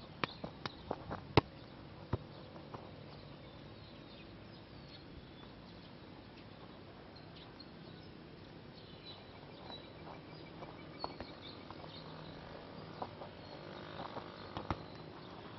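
Quiet outdoor ambience with scattered short, high chirps, and a few sharp taps in the first two seconds.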